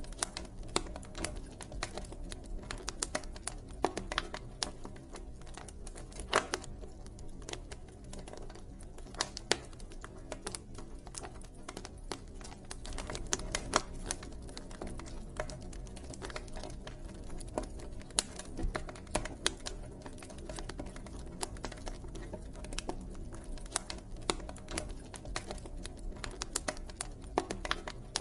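Campfire crackling: irregular sharp pops and snaps, several a second and some louder than the rest, over the low steady rumble of the burning fire.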